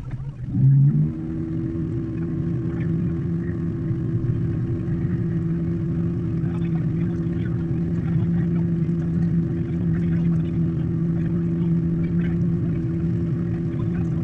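A small homebuilt river boat's motor running at a steady pitch while under way. Right at the start it dips for a moment, then comes back with a short louder surge that climbs back up to the steady note.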